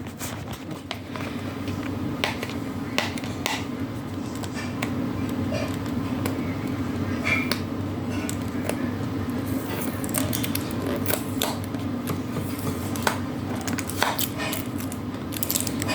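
Fingernails picking and scratching at the sealing tape on a cardboard box: scattered small clicks and scrapes over a steady low hum.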